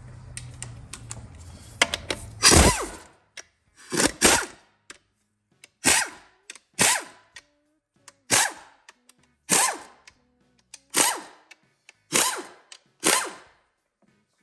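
A power tool, likely an impact or ratchet driver on transmission bolts, run in about ten short bursts roughly a second apart, each one stopping quickly.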